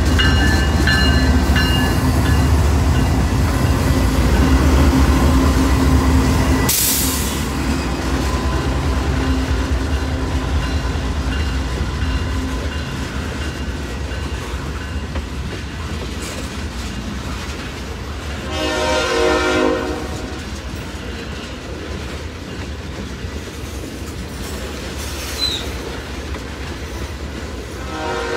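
CSX freight train passing close by: the diesel locomotives' engines rumble heavily in the first several seconds, then the hopper and tank cars roll past with steady wheel noise on the rails. A train horn sounds once for about a second and a half, about two-thirds of the way through, and starts again at the very end.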